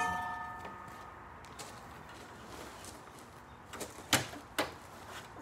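A ringing clang fading away, then three sharp knocks about four seconds in.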